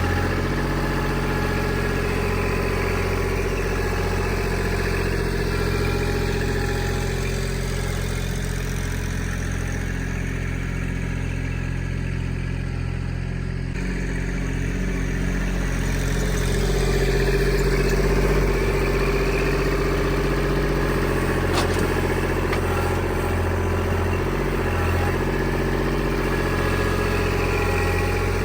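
An engine running steadily, growing a little louder a little past halfway.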